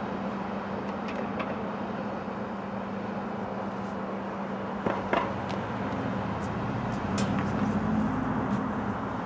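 Outdoor traffic ambience: a steady low hum with two brief knocks about five seconds in, and a low rumble that swells and fades near the end.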